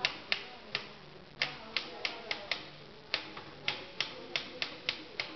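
Typewriter keys striking one at a time at an uneven pace, about fifteen sharp clacks, each dying away quickly.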